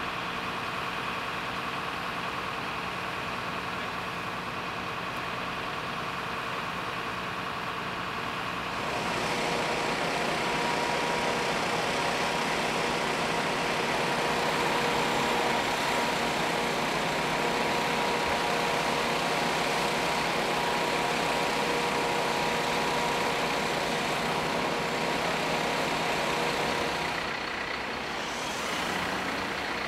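Steady drone of fire-brigade engines and engine-driven equipment running at an incident scene, with a few steady tones through it; it gets louder and fuller about nine seconds in.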